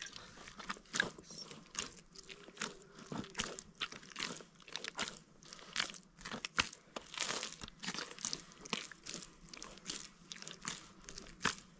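Hands kneading a large mass of bread dough in a metal basin: irregular soft presses and sticky squelches of the dough, several a second.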